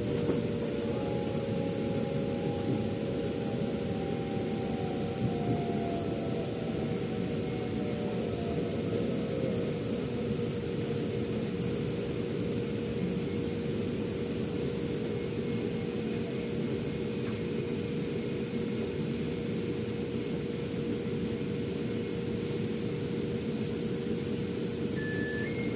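Steady rumble and hum inside a metro train car, with a motor whine gliding down in pitch over the first several seconds. Near the end an alternating two-tone beeping starts, the kind of warning a metro train gives before its doors close.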